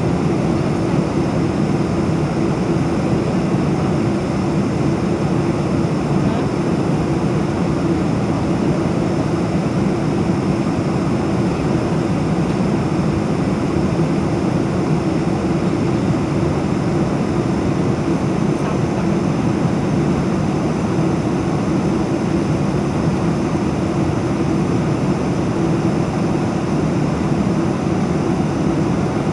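Steady cabin noise of a Boeing 747-400 climbing after takeoff: its Pratt & Whitney PW4056 turbofans and the rush of air, heard from a window seat inside the cabin as an even low roar with no change in level.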